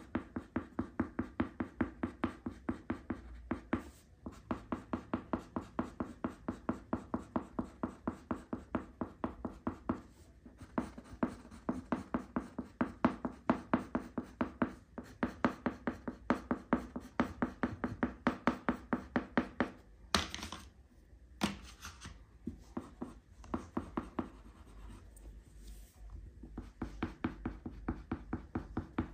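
A crayon scratching back and forth on paper in quick, even colouring strokes, about three or four a second. About two-thirds of the way in the strokes pause briefly and there are a couple of louder scrapes.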